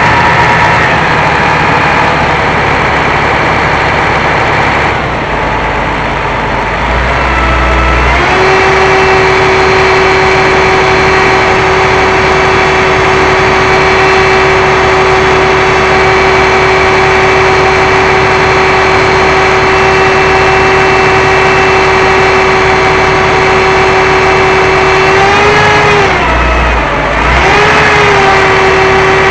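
Quadcopter drone's motors and propellers whining steadily, with several tones at once; the pitch shifts a few times and dips then recovers near the end as the drone manoeuvres.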